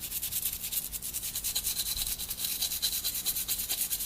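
Soft-bristled toothbrush wet with alcohol scrubbing a phone's motherboard in quick, even back-and-forth strokes, a fast steady brushing hiss: cleaning off water-damage corrosion.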